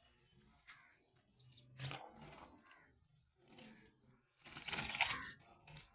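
Rustling and scraping from the cage being handled, in three or four short bursts, the longest about a second long near the end.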